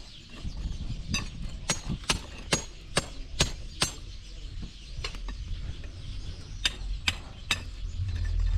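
Hammer blows on masonry as a wall is knocked down: sharp, ringing strikes about two a second, a pause of a couple of seconds, then a few more. A low rumble comes in near the end.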